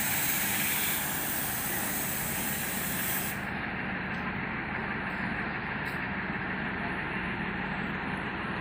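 Passenger train standing at the platform: a steady hiss of air with a low steady engine hum underneath. The highest part of the hiss drops away about three seconds in.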